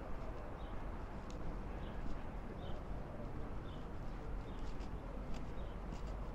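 Footsteps at a walking pace on a hard path, short ticks every half second to a second, over a steady low outdoor rumble.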